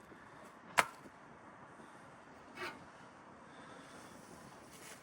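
A sharp click or knock about a second in, and a softer one a little before the middle, over a quiet background.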